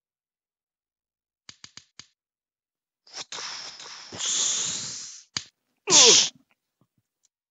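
Cheap homemade sound effects: four quick clicks, then a breathy hiss that swells for about two seconds, another click, and a short, loud vocal cry that slides down in pitch.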